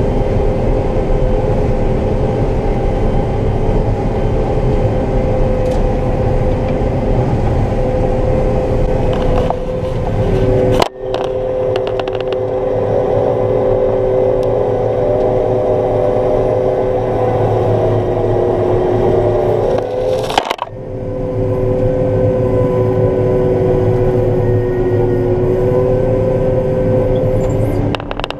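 Combine harvester running steadily while cutting soybeans, a low engine rumble under a two-note mechanical whine from the threshing drives. The sound breaks off abruptly twice, about a third and two thirds of the way through, and picks straight up again.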